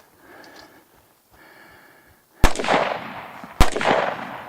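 Two gunshots about a second apart, each sharp report trailing off in a long rolling echo.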